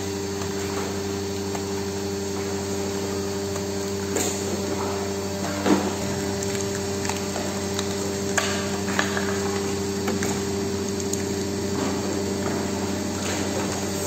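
Hydraulic power unit of a vertical PET-bottle baling press running with a steady motor-and-pump hum while the press compresses a bale. A few short sharp cracks and knocks come through at intervals.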